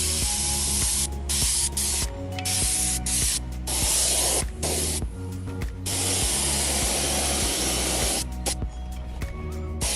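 Loud hissing spray that starts and stops abruptly again and again, in bursts of about half a second to a few seconds, over background music.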